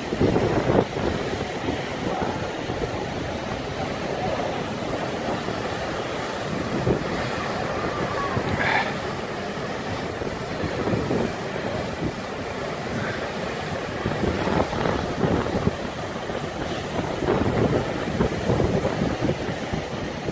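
Storm wind buffeting the microphone over the continuous wash and rumble of heavy surf breaking against a harbour wall, in gusts that come and go.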